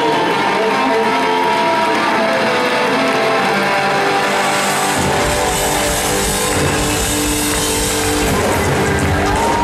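Live electric guitar solo through a loud amp, with long sustained notes bent up in pitch and held. Bass and drums with cymbals come in about halfway through.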